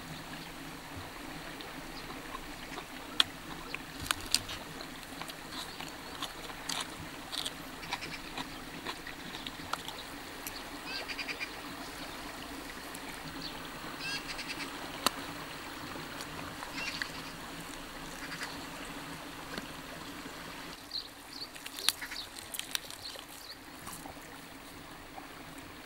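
Roast meat torn apart by hand close to the microphone, giving sharp scattered clicks and snaps of skin and bone. Behind it is a steady riverside background with short animal calls now and then.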